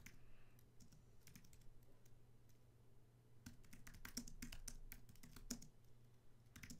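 Faint typing on a computer keyboard: scattered keystrokes, then a quicker run of them in the middle, with a faint steady hum underneath.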